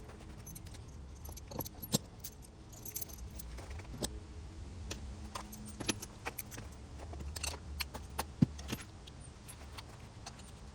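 Metal hand tools clinking and rattling as they are gathered up: a scatter of light clinks and knocks over a steady low rumble.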